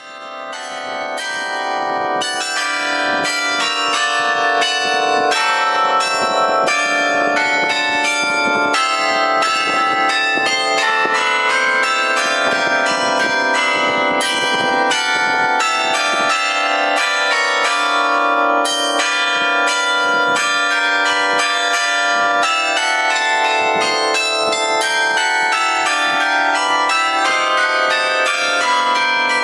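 Several church bells in a belfry ringing together in quick, overlapping strokes, each stroke ringing on into the next. The ringing fades in over the first few seconds and then holds steady.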